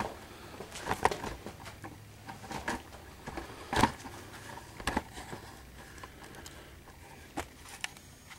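Footsteps on a concrete shop floor: scattered scuffs and light knocks, the loudest about four seconds in.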